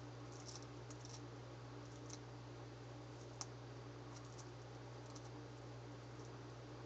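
Faint, irregular small clicks and scratches at a plastic feeding dish where a bearded dragon is feeding on dubia roaches, with one sharper click about three and a half seconds in. A steady low hum runs underneath.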